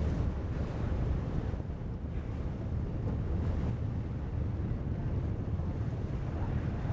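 Wind buffeting the microphone over the steady low rumble of a whale-watching boat's engine, with the wash of the sea.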